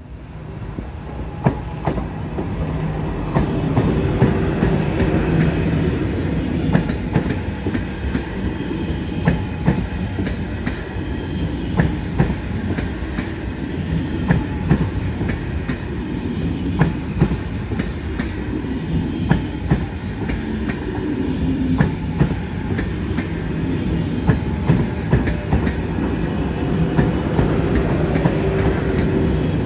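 A train passing close by on the track, its wheels clicking over rail joints against a steady deep rumble, growing louder over the first few seconds as it arrives.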